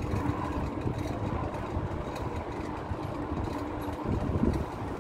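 Street traffic: motor vehicle engines running close by, with a steady engine hum over a fluctuating low rumble.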